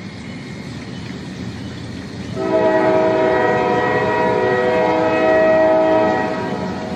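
An approaching train rumbles, and about two and a half seconds in its multi-note air horn sounds one long chord that holds for about three and a half seconds before easing off.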